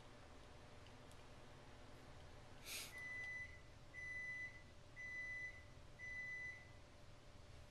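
Microwave oven beeping four times, about a second apart, faint and from another room: the end-of-cooking signal that the soup's heating time is up. A short rustle comes just before the first beep.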